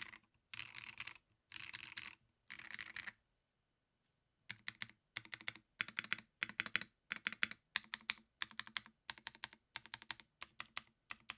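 Typing on a custom stacked-acrylic TKL mechanical keyboard with Blue Sky linear switches, an aluminium plate and POM keycaps. Four quick runs of keystrokes come about a second apart, then a short pause, then typing resumes in rapid little clusters of clacks about twice a second.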